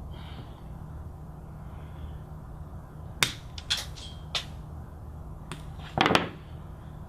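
Flush cutter snipping the ends of Cat6 conductors: a few sharp clicks, the first and loudest about three seconds in, over a low steady hum.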